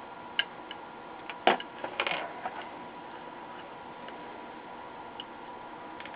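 Small sharp clicks and taps from handling a circuit board and soldering iron while the last electrolytic capacitor is desoldered from an LCD monitor power supply board. The loudest click comes about a second and a half in, with a quick cluster just after, and a faint steady tone runs underneath.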